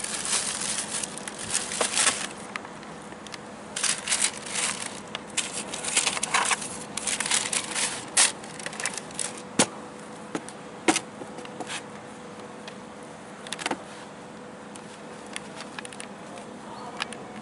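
Thin plastic bag crinkling and rustling in bursts as a sneaker is pulled out of it and handled, followed by a few sharp knocks as the shoes are set down and handled on the box. A faint steady hum runs underneath.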